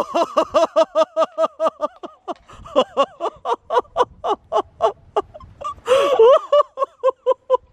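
A woman laughing excitedly in a long run of short high-pitched bursts, about six a second, with a breathier stretch about six seconds in.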